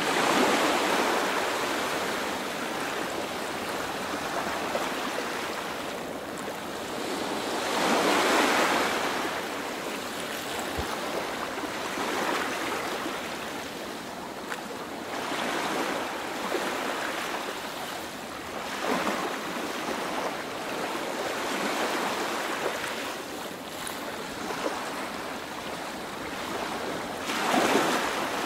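Ocean surf: waves washing in and drawing back, the noise swelling and falling every few seconds, with the strongest surges about eight seconds in and near the end.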